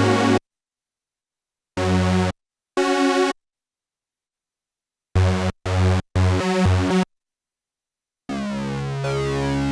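Korg Minilogue XD polyphonic analog synthesizer playing its factory preset sounds, heard dry. A note ends just after the start, then come separate short notes with silence between them: one around two seconds in, one around three seconds, and three in quick succession between about five and seven seconds. About eight seconds in, a longer held sound with sweeping overtones begins.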